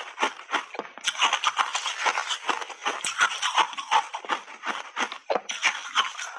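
Close-miked chewing of hard block ice: dense, rapid crunching and crackling as the ice breaks between the teeth.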